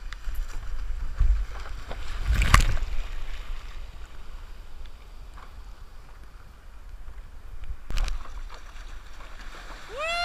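Small surf waves washing and splashing around a waterproof action camera held at the water surface, with a low rumble of water against the housing. Louder splashes come about two and a half seconds in and again near eight seconds. A long high-pitched held tone starts right at the end.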